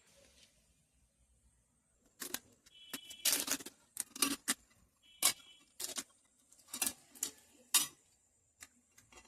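A series of sharp clicks and knocks, about a dozen, irregularly spaced, starting about two seconds in, like small hard objects being handled.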